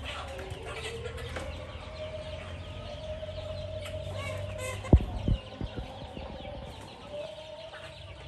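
Chickens clucking, with one long drawn-out call in the middle. A sharp knock about five seconds in, the loudest sound, is followed by a few lighter taps.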